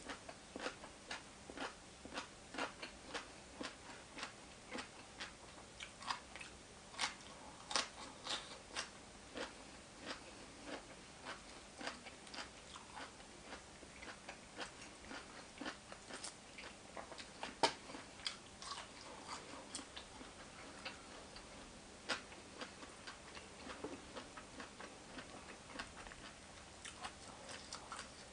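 Close-up eating sounds: a person chewing, with irregular wet mouth clicks and smacks a few times a second and an occasional louder crunch.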